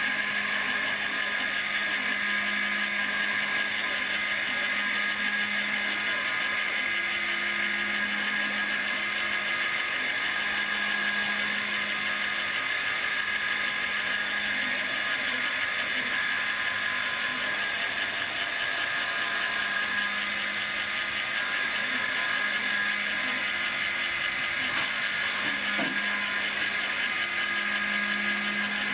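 Proxxon MF70 mini milling machine converted to CNC, isolation-milling a copper-clad circuit board: the spindle runs with a steady high whine, while a lower hum switches on and off every second or two.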